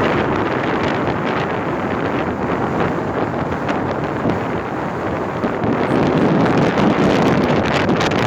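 Strong gusting mountain wind buffeting the microphone, a loud steady rushing roar that swells near the end.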